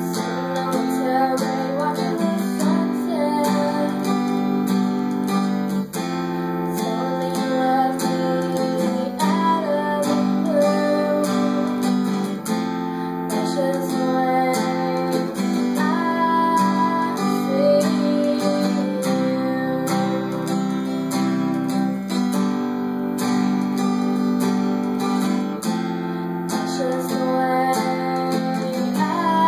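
Acoustic guitar strummed steadily in a song, with a woman singing over it.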